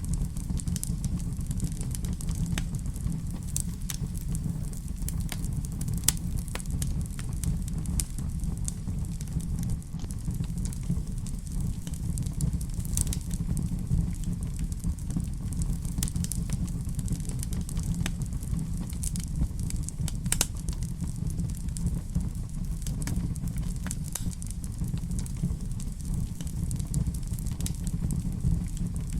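Fire burning in a fireplace: scattered crackles and pops over a steady low rumble, with one sharper pop about six seconds in.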